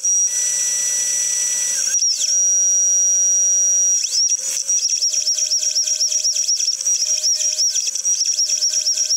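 G0704 CNC milling machine cutting aluminium with a quarter-inch end mill: a steady high-pitched whine. From about four seconds in, the whine dips in pitch and recovers in quick repeated swoops, a few times a second, as the cut goes on.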